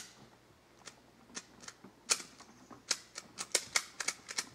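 Rifle cartridges being pushed into a magazine from a stripper clip: a run of sharp metallic clicks at an uneven pace, sparse at first and coming thick and fast from about two seconds in.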